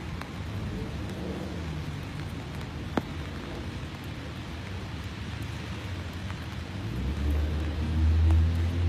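Outdoor ambience: a steady low rumble of wind and distant traffic, with a single sharp click about three seconds in. Near the end a louder, steady low drone swells in.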